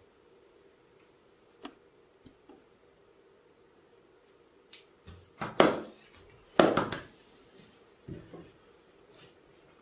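Percussive strikes of a head and shoulder massage: a few faint taps, then two loud sharp hits about a second apart a little past halfway, and softer ones after.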